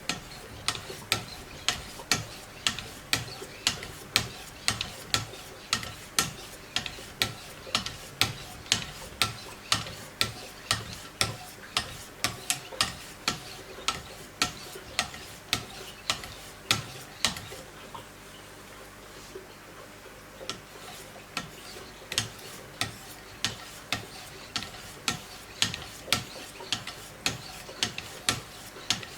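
Wicked Edge guided sharpener's stones being stroked along a knife blade, one sharp scraping stroke after another at about two a second, with a pause of about two seconds about two-thirds of the way through.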